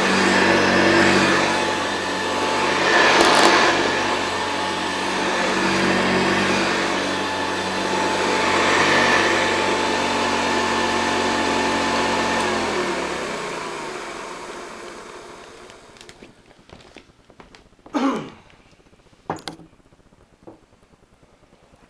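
Hoover Convertible 1076 upright vacuum cleaner running steadily, growing louder and softer in turn. About twelve seconds in the motor is switched off and winds down, its hum falling in pitch and fading out over a couple of seconds. Two short sounds follow near the end.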